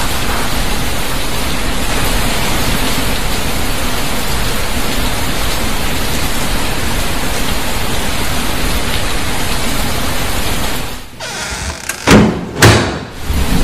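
Heavy rain, a loud steady hiss, which dips about eleven seconds in; two loud bangs follow near the end.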